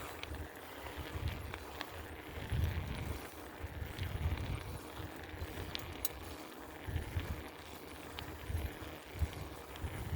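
Bicycle ride heard on the camera's microphone: gusty wind buffeting and rolling road noise, with scattered small clicks and rattles from the bike.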